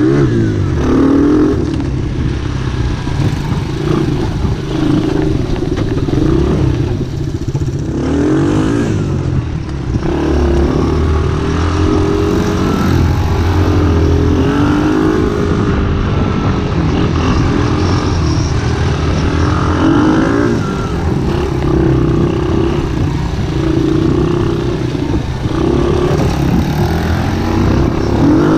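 125 cc ATV engines running under load off-road, the revs rising and falling continually as the throttle is worked over rough ground.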